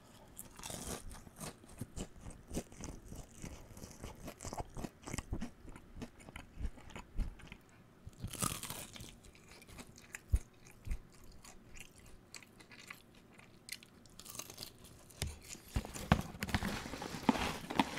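Close-miked eating: chewing of spicy tteokbokki rice cakes and crunchy bites into a batter-fried Korean twigim, many short crunches and mouth clicks throughout.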